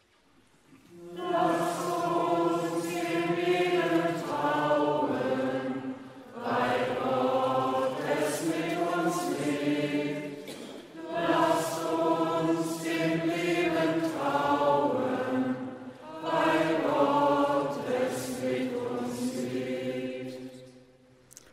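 A choir singing the sung response to an intercession, in four phrases with short breaks between them.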